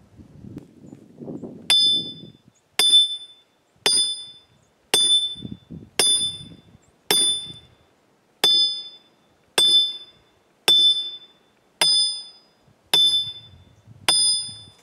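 A maul striking an improvised steel wedge: twelve ringing metal-on-metal clangs about a second apart, starting about two seconds in. Each blow drives the wedge deeper into the saw cut to spread it.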